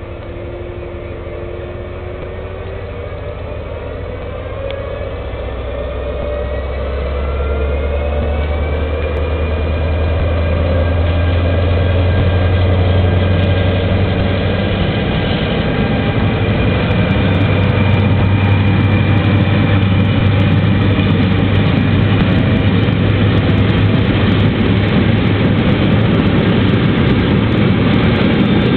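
ÖBB Class 2016 'Hercules' diesel-electric locomotive revving up its V16 diesel engine as it starts a freight train. The engine note rises in pitch over the first several seconds and grows louder as the locomotive passes close by, then the train of tank wagons rolls past.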